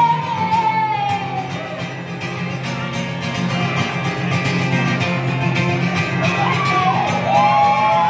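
A woman singing live to her own strummed acoustic guitar, holding a long note at the start that slides down, and another long note near the end.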